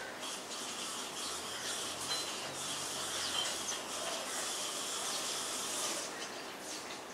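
Steady high outdoor hiss, with a couple of faint, very short high chirps about two and three and a half seconds in.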